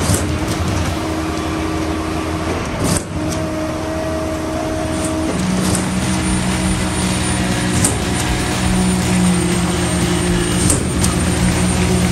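Heavy diesel engine of a concrete pump truck running steadily while it pumps concrete through the boom hose, amid construction-site noise; its hum drops lower about five seconds in, with a few sharp knocks.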